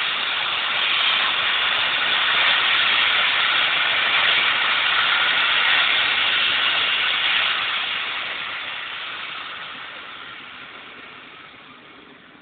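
The steam locomotive 60163 Tornado venting steam: a loud, steady hiss that holds for about eight seconds and then slowly fades away.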